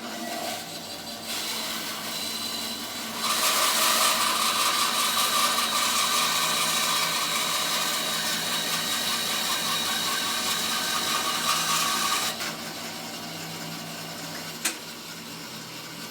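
Record Power BS300E bandsaw running, its blade cutting through a log for about nine seconds from around three seconds in, then running free again. A single sharp click near the end.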